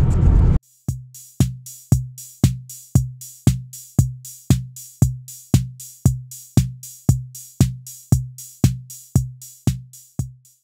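Background music: a drum-machine beat with a deep, ringing bass drum about twice a second. A moment of car road rumble comes before it, and the beat cuts in under a second in.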